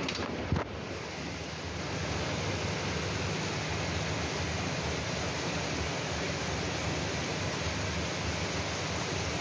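Heavy rain falling steadily: an even hiss. A short knock about half a second in.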